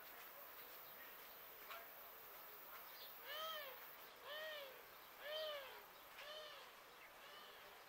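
A cat meowing five times, about once a second, each meow rising then falling in pitch; the last two are fainter.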